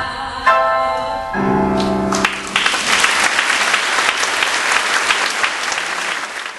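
A woman's voice holds the last sung note of a song over instrumental accompaniment. Then audience applause breaks out about two and a half seconds in, and it fades near the end.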